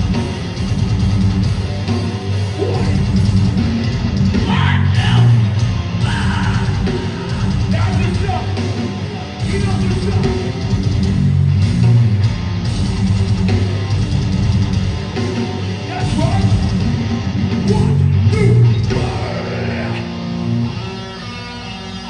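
Live hardcore punk band playing loud and heavy: distorted electric guitars, bass and drums with shouted vocals. The band eases off near the end.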